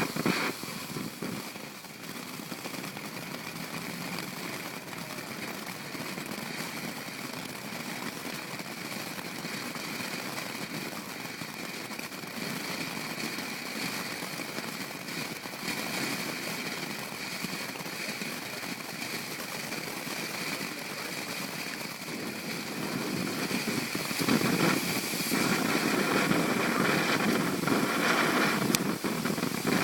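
Small consumer fireworks going off together in a finale: a steady hiss with dense crackling, growing louder about three-quarters of the way through.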